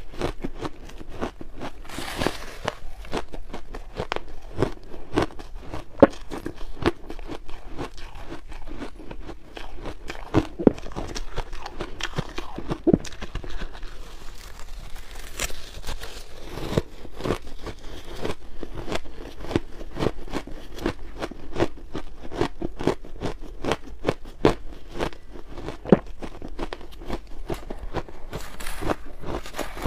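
A person biting into and chewing big mouthfuls of frozen purple shaved ice close to a lapel microphone. The crunching is dense and irregular, with sharp cracks now and then.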